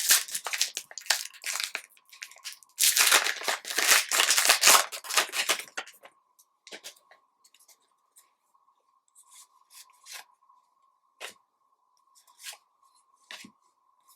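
Foil wrapper of a trading card pack crinkling and tearing open, loudest from about three to six seconds in, then a scatter of short soft clicks and rustles.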